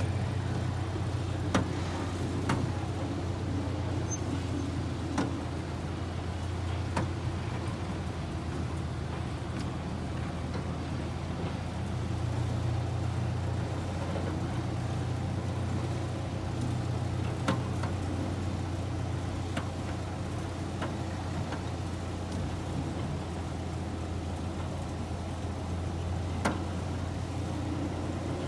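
Miniature train running along its track: a steady low engine drone with a noisy rumble of the ride, broken now and then by single sharp clicks or knocks.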